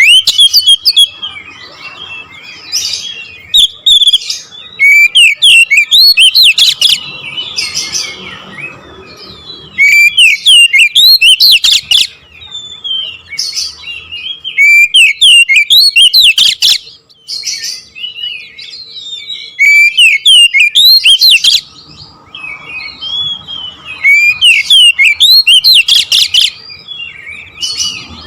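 Oriental magpie-robin (kacer) singing a long, loud, rapid run of varied whistles and chirps. The song comes in bursts of a second or two, separated by short quieter pauses.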